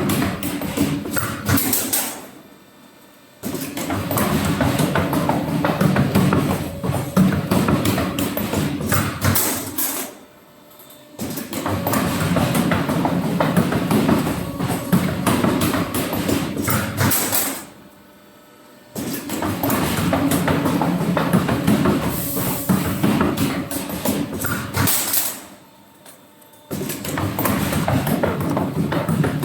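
Fruit basket handle making machines running with a busy metallic clatter of rapid knocks, heard in several stretches separated by brief near-silent gaps.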